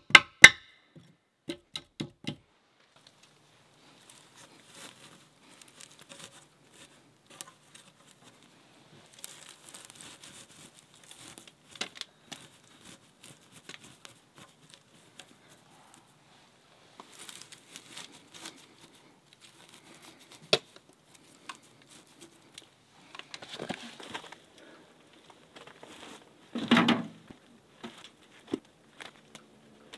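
A hammer tapping nails into a log wall, about five sharp strikes in the first two seconds. Then soft crinkling and tearing as moss is pulled apart and pressed into the gaps between the logs, with a louder brief rustle near the end.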